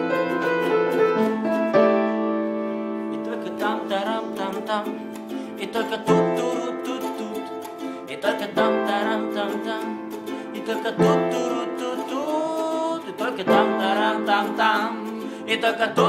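Live music: a ukulele strummed over sustained piano chords, with men singing from a few seconds in.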